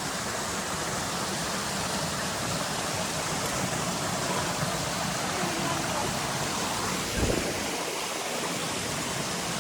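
Steady rushing of a waterfall and its stream, with a brief low thump about seven seconds in.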